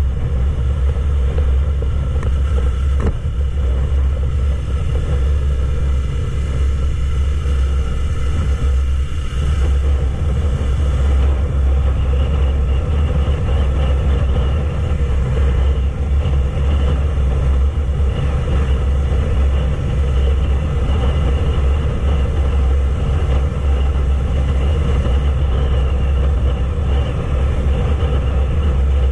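Yamaha YZF-R3's parallel-twin engine running at a steady cruising speed on the highway, its pitch holding even, under a heavy low rumble of wind on the microphone.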